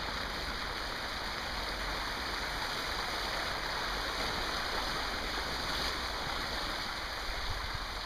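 Small river rushing steadily where water spills past a low drop.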